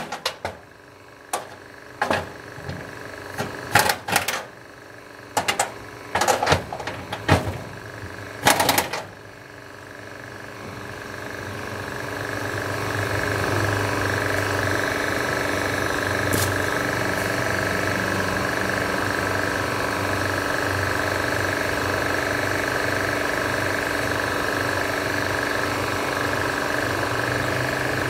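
Sharp clicks and knocks, about a dozen in the first nine seconds, as the wheel chock is handled on the ribbed aluminium trailer deck. Then a steady mechanical hum builds up over a few seconds and runs on at an even level.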